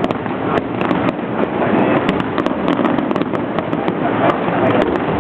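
Fireworks display: a dense, continuous crackling of many sharp pops over a steady wash of noise.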